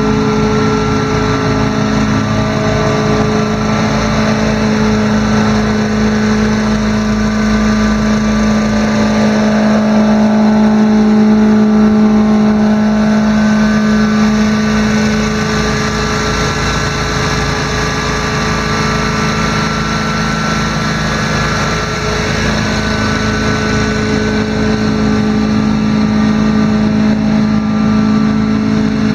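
Small engine of a commercial zero-turn riding mower running steadily at speed. The sound swells slightly about ten seconds in and settles back near the end.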